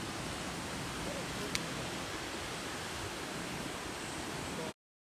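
Steady rushing of a mountain river and its small waterfall, with one sharp click about a second and a half in. The sound cuts off suddenly shortly before the end.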